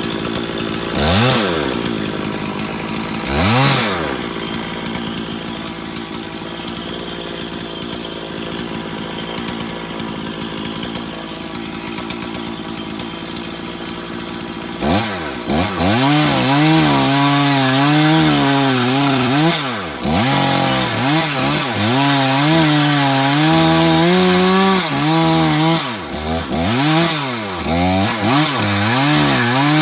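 Stihl MS460 two-stroke chainsaw revved twice, idling for about ten seconds, then run at full throttle from about fifteen seconds in. Its pitch dips and recovers again and again as it cuts into elm wood.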